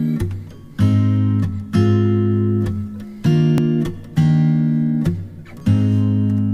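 Background music: acoustic guitar strumming chords, struck about once a second and left to ring.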